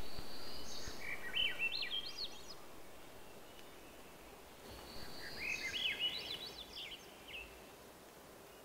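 Swainson's thrush singing twice. Each song opens on a held high note, then runs through quick phrases that climb upward in pitch; the second song starts about five seconds in.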